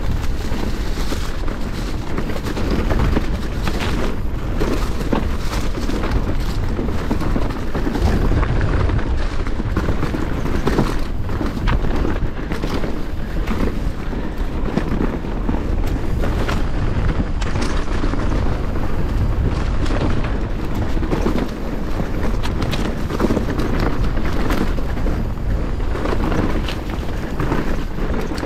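Commencal Meta SX V4 enduro mountain bike descending a dirt and leaf-covered singletrack at speed: continuous wind rush over the chest-mounted GoPro and tyre roar on the dirt, with frequent rattles and knocks as the bike clatters over bumps.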